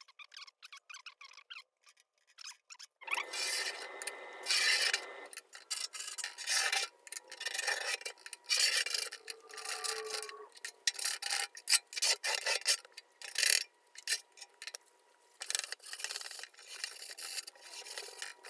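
Hand scraping and rubbing on the sheet-steel body of a Craftsman toolbox while stripping its old paint. A few faint scratches give way, about three seconds in, to irregular rasping strokes of varying length.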